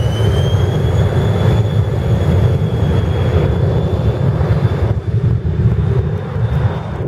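Twin tail-mounted turbofans of a Cessna Citation Excel business jet at high power on the runway for takeoff: a steady high whine over a loud low rumble, the whine rising slightly in the first second as the engines spool up.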